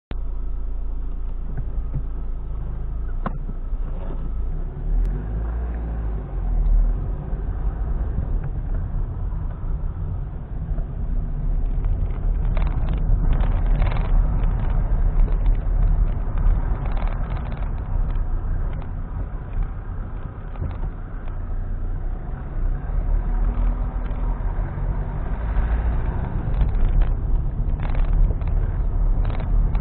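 A car driving slowly, heard from inside the cabin: a steady low engine and road rumble, with occasional short knocks and rattles over the uneven street surface.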